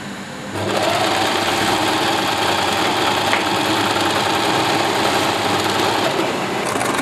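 Electric household sewing machine starting up about half a second in, its motor whine rising briefly and then running at a steady speed as it stitches fabric.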